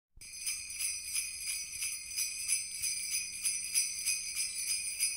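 Sleigh bells shaken in a steady rhythm, about three shakes a second, starting just after the opening.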